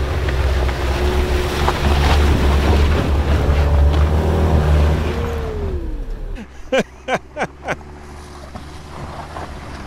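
A 2014 Jeep Compass's four-cylinder engine revs hard with its street tires spinning in slick mud as it fails to climb a steep bank. After about five seconds the revs fall away and the sound drops much lower, with a few short, sharp squeaks about seven seconds in.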